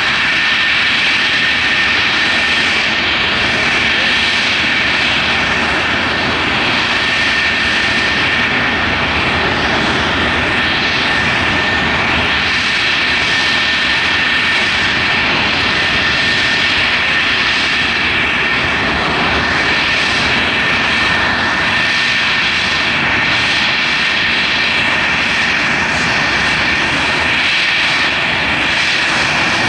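English Electric Lightning's two Rolls-Royce Avon turbojets running steadily on the ground: a loud, even rush with a constant high-pitched whine.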